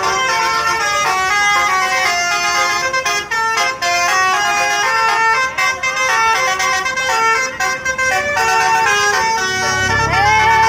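Basuri telolet bus horn playing a fast melody of short stepped notes. A low rumble joins near the end.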